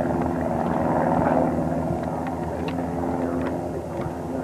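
Titan Tornado light aircraft flying overhead, its propeller engine giving a steady drone.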